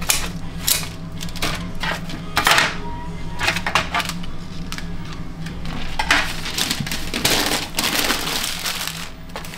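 Snack-bar kitchen clatter: irregular clinks and knocks of metal utensils and dishes, busiest about two and a half seconds in and again near the end, over a steady low hum.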